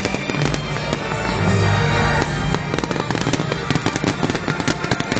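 Fireworks display: a dense stream of sharp cracks and pops, thickest in the second half, with music playing under it.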